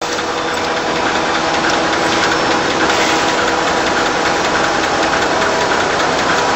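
Automatic facial tissue production line running: a fast, even mechanical clatter over a steady hum of several tones.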